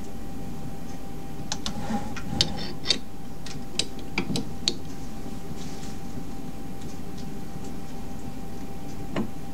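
Small benchtop CNC lathe standing with its spindle stopped, giving a steady machine hum with a faint constant whine. A cluster of sharp clicks and taps comes about two to five seconds in, and one more click near the end.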